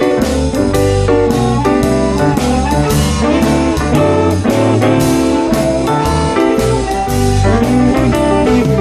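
Live Chicago-style blues band playing an instrumental break with no singing: electric guitar, keyboard, bass and drums over a steady beat.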